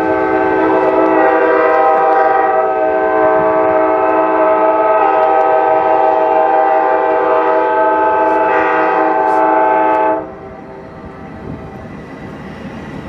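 Amtrak diesel locomotive air horns sounding one long, loud multi-note chord at a level crossing, cutting off suddenly about ten seconds in. Quieter train running noise follows.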